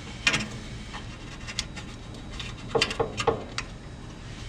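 A handful of light clinks and knocks from grill parts being handled and set in place: one about a third of a second in, then a quick cluster around three seconds.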